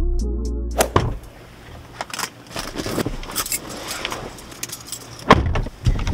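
Intro music ends about a second in. Then come clicks, rattles and rustling of a camera being handled and set in place inside a car, with a louder knock about five seconds in.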